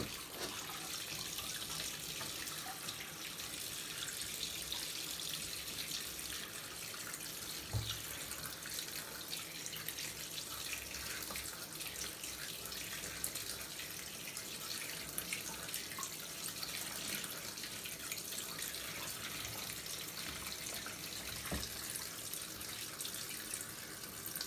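Water running in a steady stream into the plastic spin tub of a Costway mini twin tub washing machine as it fills, with a couple of faint knocks.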